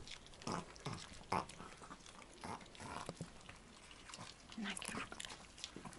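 Chihuahuas making several short vocal sounds while begging for a piece of sweet pepper held above them.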